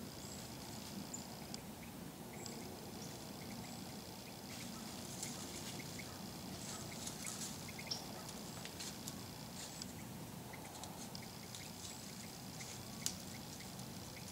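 White-tailed doe feeding in dry leaf litter: scattered rustles and crackles of leaves, with a sharper crack about eight seconds in and again near the end. A faint steady high-pitched whine runs in the background.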